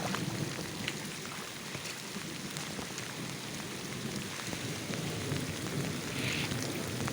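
Steady heavy rain falling, with a few sharp drop taps close by.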